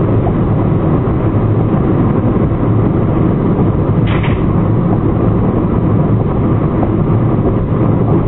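A car being driven, heard from inside the cabin: steady, loud engine and tyre noise, with a brief hiss about four seconds in.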